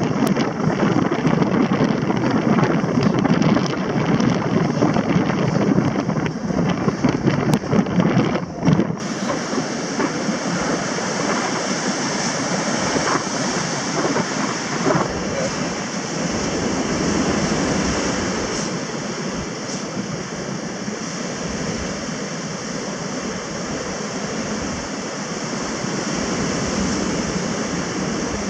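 Surf breaking and washing up the beach, with wind buffeting the microphone. About nine seconds in the sound changes abruptly to a steadier hiss of surf with less wind rumble.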